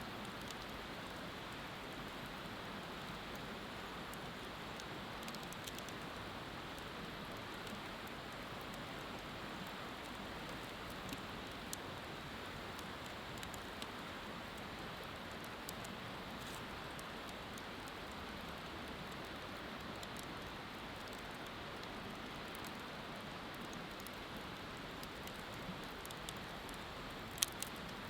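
Wood bonfire crackling with scattered small pops and one sharper pop near the end, over a steady rushing sound of flowing river water.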